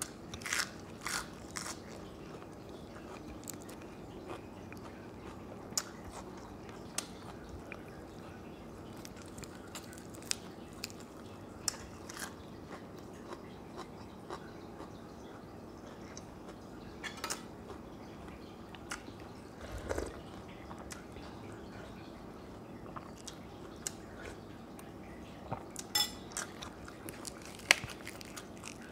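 A person eating close to the microphone: crisp bites and crunches of fresh lettuce leaves with chewing, scattered irregularly throughout. A single low thump comes about 20 seconds in.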